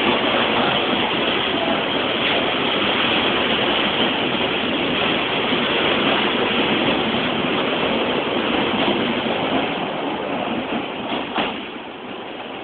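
Passenger train carriages rolling past at close range: a steady rolling noise that fades over the last couple of seconds as the train pulls away, with a few sharp clicks near the end. Recorded on a low-quality phone microphone.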